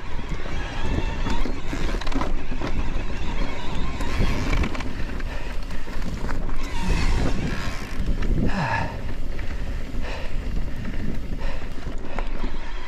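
Wind buffeting the microphone as an e-mountain bike rolls along a rough bridle path, with frequent knocks and rattles from the bumps.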